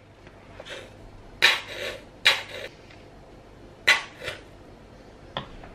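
A nearly empty plastic squeeze bottle of mustard squeezed onto a metal spoon, giving three sputtering squirts as air spurts out with the last of the mustard. A short click comes near the end.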